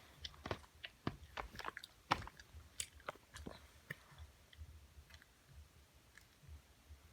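A dog chewing and crunching something: quick crisp crunches several times a second at first, growing sparser after about four seconds.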